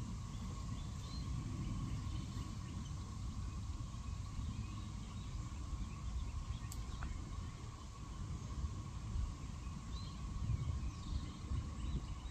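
Wind buffeting the microphone in gusts, over a steady cicada drone and a few faint bird chirps.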